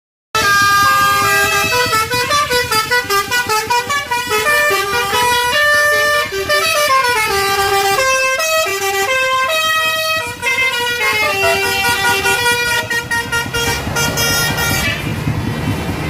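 Telolet musical horn, several air-horn trumpets sounding a quick melody of short stepping notes, often two or three notes at once. The tune stops about fifteen seconds in, leaving a low vehicle rumble.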